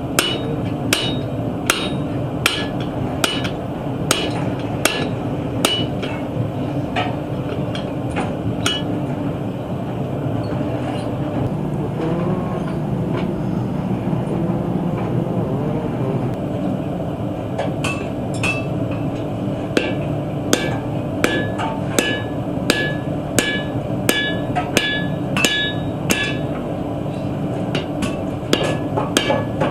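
Hand hammer striking the truck-spring steel on an anvil, each blow ringing. The blows come about once a second at first, stop for several seconds in the middle, then resume faster at about two a second, over a steady low background noise.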